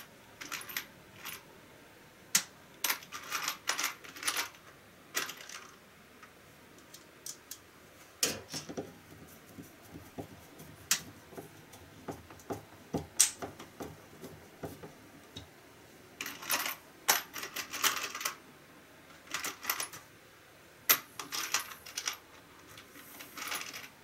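Hand screwdriver driving screws through a steel air-conditioner mounting plate into wall anchors: irregular bursts of sharp metallic clicks and scrapes, with short pauses between.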